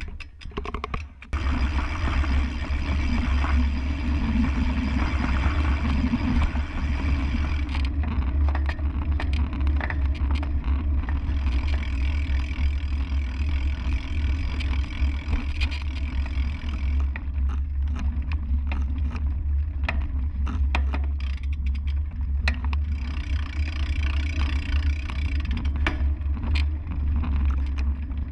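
Steady low rumble and noise of a sailboat under way, with scattered small clicks and knocks.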